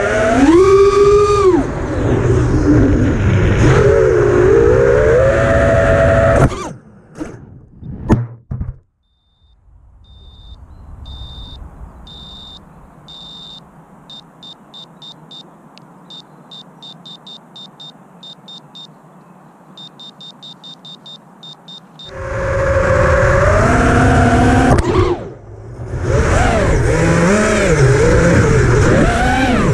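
Armattan Chameleon FPV quadcopter's motors and propellers whining, the pitch rising and falling with the throttle, then a crash about seven seconds in with a few sharp knocks as it tumbles into the grass. While it lies there its beeper sounds in quick runs of high beeps for about twelve seconds, until the motors spin back up near the twenty-two second mark and it flies off again, whining with the throttle.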